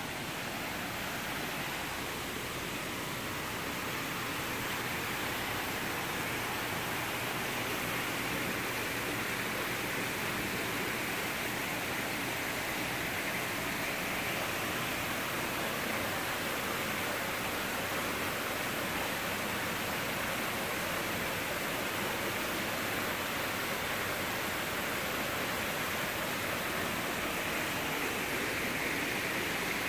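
Koi pond water feature: a steady rush of running water, growing slightly louder over the first few seconds, then holding steady.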